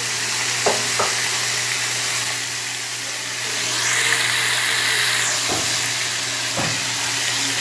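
Stuffed squid sizzling on a hot ridged grill pan, just laid on raw: a steady frying hiss that swells briefly about four seconds in, with a few light knocks.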